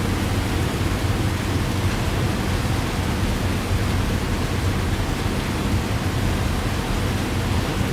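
Steady heavy rain: an even, unbroken hiss with a deep low rumble beneath it.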